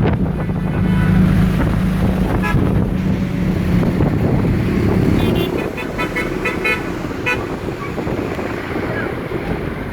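Road traffic: a vehicle engine running steadily, with several short horn honks around the middle and wind on the microphone.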